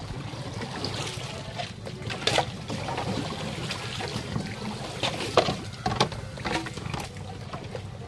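Water trickling and splashing, with scattered knocks and clatters.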